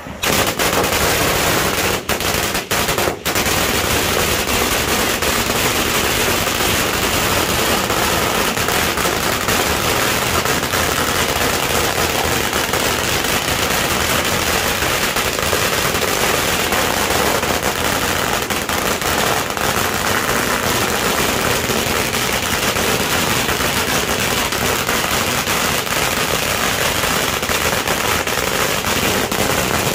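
A long hanging string of firecrackers going off in a continuous, rapid crackle of bangs. It starts suddenly and runs on unbroken, apart from two brief dips about two to three seconds in.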